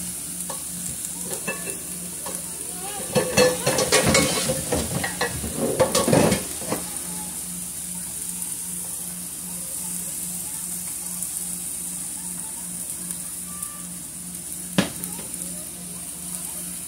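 Diced red onions sizzling in oil in a nonstick frying pan, with a burst of stirring and scraping in the pan from about three to six and a half seconds in, and a single sharp knock near the end.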